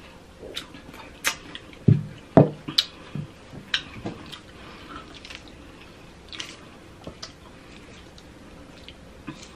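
Close-miked eating sounds of soft fresh fruit and whipped cream: wet smacking and squishy chewing with scattered mouth clicks. The two loudest, heavier thuds come about two seconds in.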